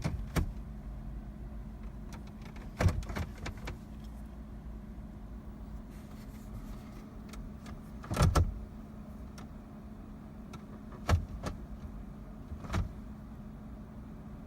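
Jeep cabin with the engine off: a steady low hum with a few separate clicks and clunks as the automatic gear selector is worked between park and drive, the engine never cranking. The no-start comes from the park/neutral safety switch not registering park.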